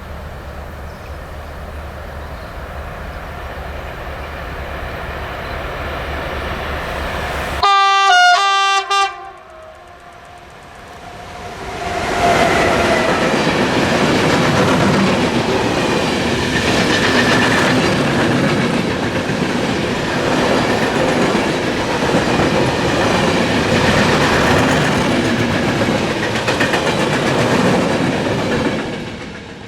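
A train sounds its horn in two short loud blasts about eight seconds in, then passes close by for roughly seventeen seconds, its wheels clattering over the rail joints, before the sound drops away near the end.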